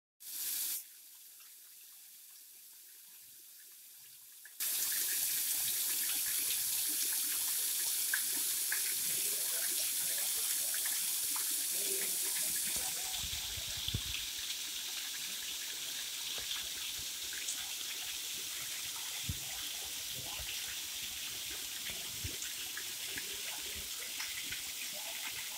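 Small waterfall splashing down stepped rock ledges into a pool: a steady hiss of falling water. It is faint at first and jumps up suddenly about four and a half seconds in, easing slightly about halfway through, with a few brief low bumps.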